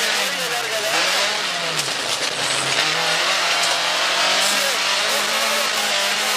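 Rally car engine running hard on a special stage. Its revs drop and climb a few times in the first three seconds, then hold steady, under loud, steady road and tyre noise.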